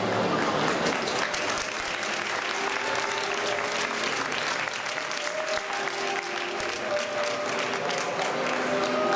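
Crowd applauding, a dense patter of many hands clapping. Background music drops away at the start and comes back about halfway through, growing louder near the end.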